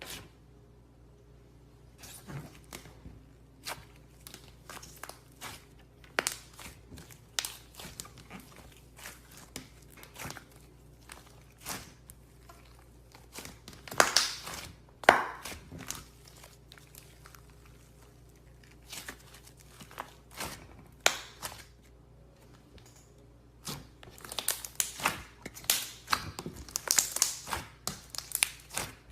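Slime being squeezed and stretched by hand, giving irregular sticky clicks, pops and crackles, with a few louder snaps about halfway and a quicker run of crackling near the end.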